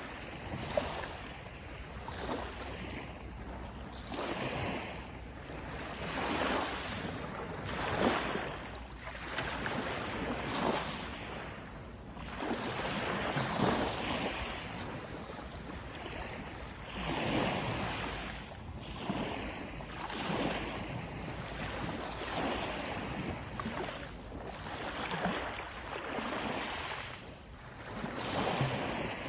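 Sea waves washing in, an irregular series of surges every second or two.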